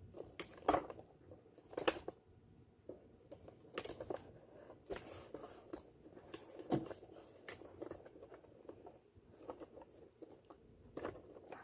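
Irregular small clicks, taps and scrapes of sewing machine parts and tools being handled, the sharpest about two seconds in and near seven seconds.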